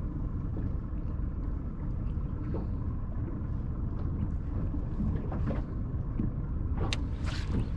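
Steady low rumble aboard a small fishing boat, with wind on the microphone and one sharp click near the end.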